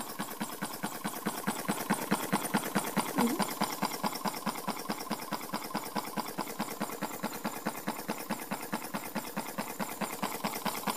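Homemade soda-can Stirling engine with a CD flywheel running on a candle's heat, ticking in a rapid, even rhythm of several clicks a second.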